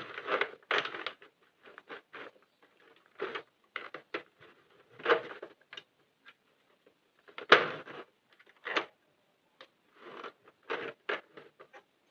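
Irregular small clicks and scrapes of plastic and yarn as stitches are worked by hand on a Sentro 48-needle circular knitting machine, the loudest click about seven and a half seconds in.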